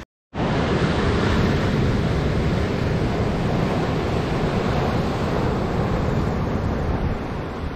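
Ocean surf washing up a sandy beach in a steady rush, with wind buffeting the microphone.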